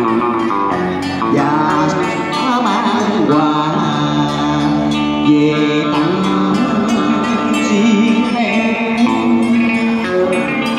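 Vietnamese cải lương singing with instrumental accompaniment: a wavering voice with wide vibrato over steady held notes.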